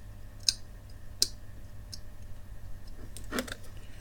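Two sharp clicks about three quarters of a second apart, a few faint ticks and a short scrape near the end, from hand work on the head arm and platters of an opened laptop hard drive, over a low steady hum.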